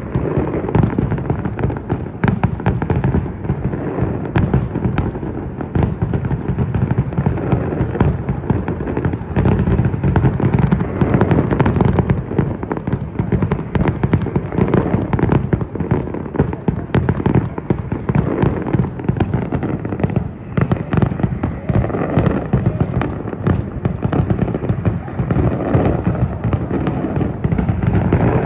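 Aerial fireworks display going off without pause: a dense barrage of bangs and crackles over a continuous low rumble.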